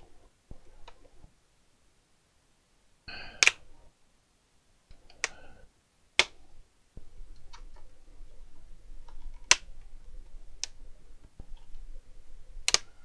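Plastic clips of a laptop's screen bezel snapping loose one by one as the bezel is pried off the lid: about half a dozen sharp clicks a second or two apart, with soft handling rustle between them.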